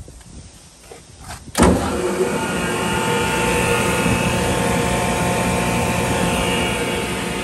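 Palatek 20 hp rotary screw air compressor with a 460 V three-phase electric motor starting up: after a faint click, it comes on suddenly about a second and a half in, then runs steadily with a hum and a steady whine.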